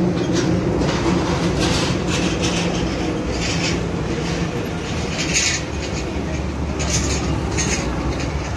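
Steady rumble of passing road traffic, with an engine hum that fades away over the first few seconds and a deeper rumble near the end.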